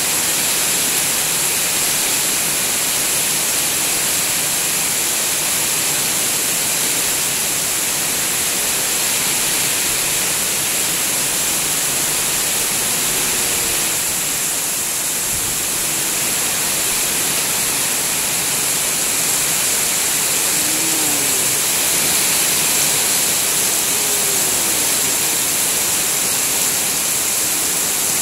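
Heavy rain pouring steadily, heard from under a corrugated metal roof.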